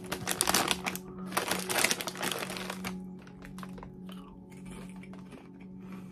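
Plastic chip bag crinkling as it is opened and handled, for about three seconds, then quieter rustling.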